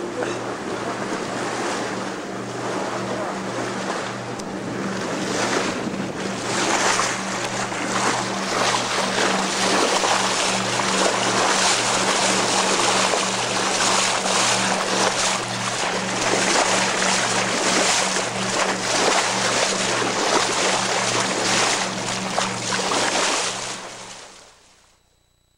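Water rushing along a moving sailboat's hull and wind buffeting the microphone, over a steady low hum that pulses about three times a second. It all fades out near the end.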